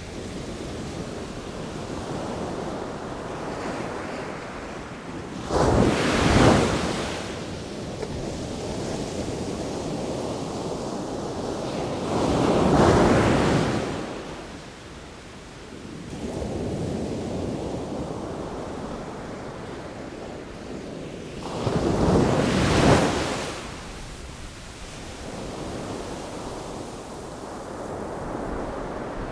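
Sea waves breaking, with a steady wash of water between them. Three larger waves crash about 6, 13 and 22 seconds in.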